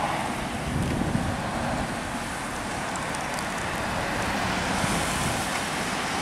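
Steady road traffic noise as cars, tour minibuses and a truck pass close by: engines running and tyres on the asphalt.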